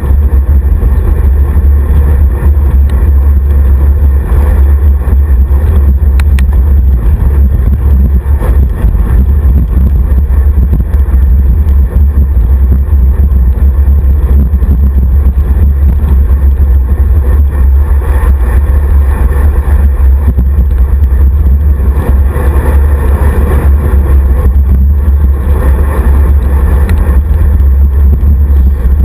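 Wind buffeting the microphone of a handlebar-mounted camera on a road bike at riding speed: a loud, steady low rumble with a rushing haze above it.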